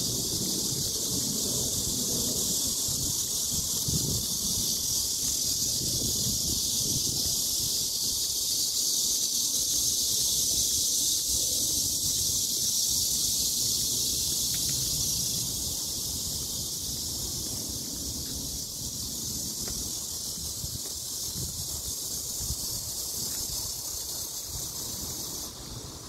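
Wind buffeting a phone's microphone in irregular low gusts, over a steady high hiss of wind through the trees; the gusts ease off about halfway through.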